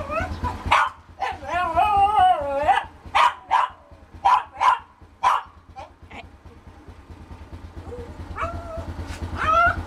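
Small long-haired dog barking and whining to be let out: a long wavering whine about a second in, then a run of six sharp barks, and rising whiny yips near the end.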